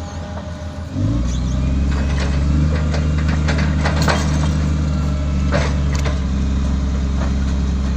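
Heavy diesel engine of earthmoving machinery coming up to a loud, steady drone about a second in and holding it, during the recovery of a bogged road grader. Scattered sharp knocks sound over it.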